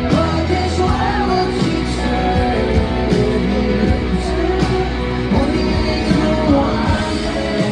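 Live rock band playing a song at full volume: drums, bass and guitar, with a voice singing over them.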